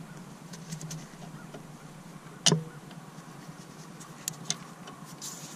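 Tools and parts knocking during hand work on a vehicle: one sharp clank about halfway through with a brief ring, two lighter clicks near the end, and scattered small ticks over a steady low hum.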